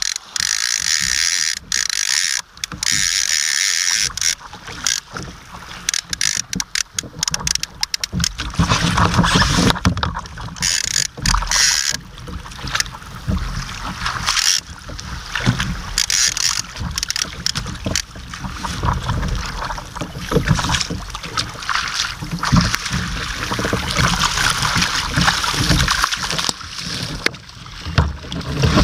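Wind buffeting the microphone over choppy sea against a kayak, with water sloshing and scattered knocks and clatter from handling gear aboard. It gets louder and heavier from about eight seconds in.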